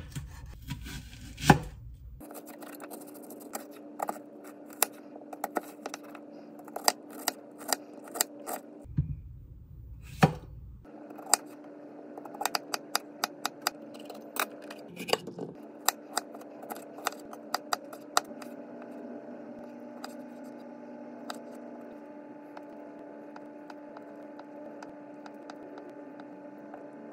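Chef's knife cutting red onion, red bell pepper and feta on a wooden cutting board: irregular sharp knocks of the blade hitting the board, in runs of several a second, over a faint steady hum.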